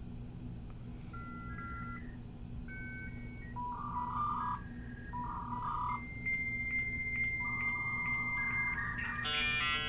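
Dial-up modem handshake between the PowerBook's Apple V.92 modem and the Dell's Conexant V.92 modem over an analog PBX line. A series of short paired beeps, then from about six seconds in a steady high answer tone, and near the end a cluster of several tones sounding together as the modems negotiate the connection.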